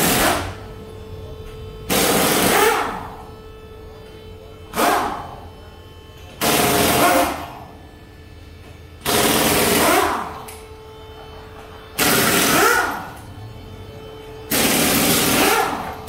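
Pneumatic impact wrench rattling in short bursts, about seven in all, every two to three seconds, each dying away as the tool winds down.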